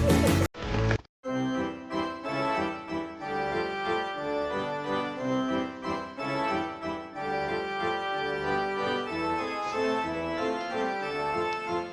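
Background music of sustained keyboard chords, organ-like, with the notes changing every fraction of a second; a brief cut to silence about a second in.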